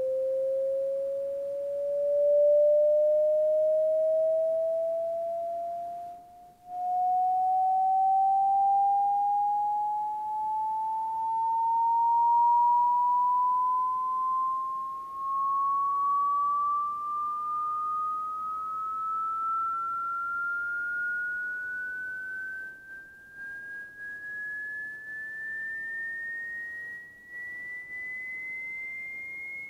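Audio test sweep from a computer played over a large loudspeaker: a single pure sine tone gliding slowly and steadily upward in pitch, from a middling tone to a high whistle. It briefly drops out about six and a half seconds in.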